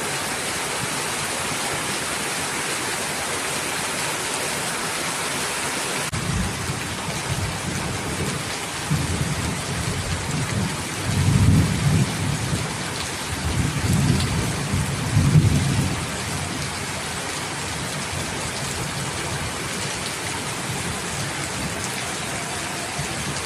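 Heavy rain falling steadily, with thunder rumbling from about six seconds in for some ten seconds, swelling loudest twice near the middle before fading back to the rain.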